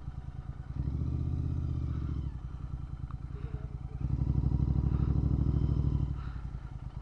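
Motorcycle engine running with a fast, even exhaust beat. It is revved twice, louder for a second or two about a second in and again from about four seconds in.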